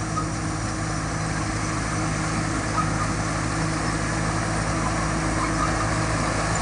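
Thai Seng rice combine harvester running steadily as it harvests, its engine a constant drone with a mechanical clatter.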